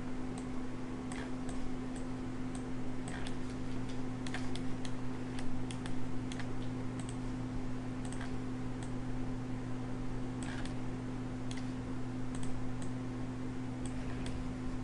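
Irregular, light clicks of a computer mouse and keyboard during 3D modeling work on a PC, a few clicks a second in clusters, over a steady low electrical hum.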